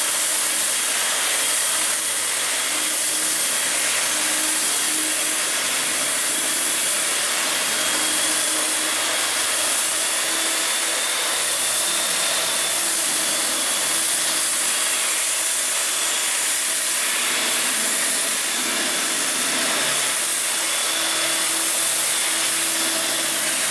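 A 100 mm woodworking belt sander running steadily while its belt sands paint off a steel structure. It makes a continuous hiss with a faint, steady high whine, at an even level throughout.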